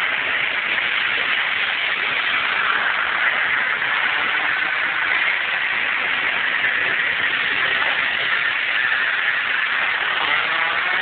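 Go-kart engines running in an enclosed indoor track hall, a steady buzzing drone. Near the end one kart's engine note rises as it speeds up.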